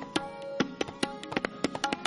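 Tabla playing solo: a quick, uneven run of sharp strokes on the wooden right-hand drum and the metal left-hand drum, many of them leaving a short ringing tone.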